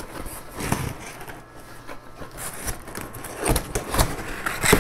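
Cardboard box flaps being pulled open by hand: irregular scraping and rustling of corrugated cardboard, busiest near the end.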